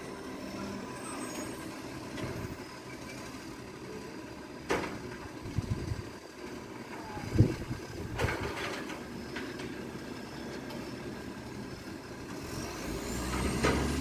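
Iveco recycling truck's diesel engine running steadily, with a few sharp knocks and clatters partway through. Near the end the engine rises in pitch and gets louder as it revs.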